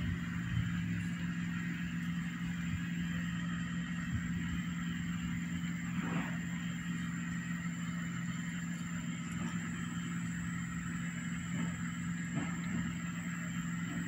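A steady low mechanical hum, like a motor or engine running without a break, with a few faint soft ticks over it.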